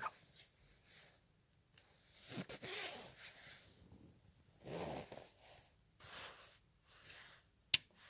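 Padded jacket being put on and zipped up: fabric rustling and short zipper rasps in several spells, with one sharp click near the end.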